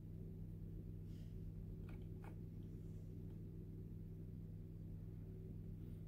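A faint, steady low hum made of several held tones, with a few soft ticks about two seconds in.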